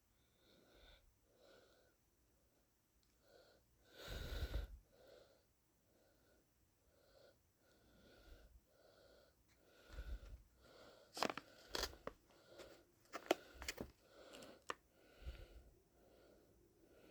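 Heavy, wheezy breathing close to the microphone, about one breath a second, with one louder rush of breath about four seconds in. From about ten seconds in, sharp crackles and clicks as the blind bag is handled and opened.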